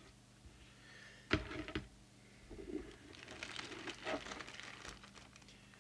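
Plastic packaging bag crinkling and rustling as a small CB radio is handled, with one sharp knock about a second in.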